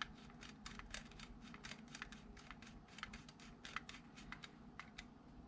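Faint, irregular small clicks and ticks of an airsoft pistol's conversion-kit part being handled and fastened with a small screw, several a second.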